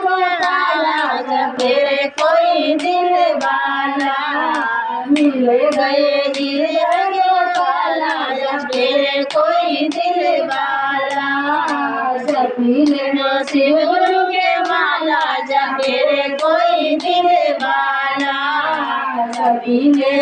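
Women singing a Shiv charcha bhajan together in a group, with steady hand claps keeping time, about two claps a second.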